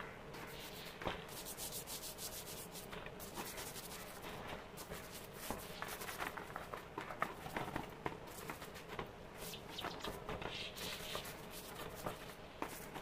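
Small plastic scrub brush scrubbing the housing of an electric wood planer in soapy water, a continuous run of quick, irregular scratchy strokes.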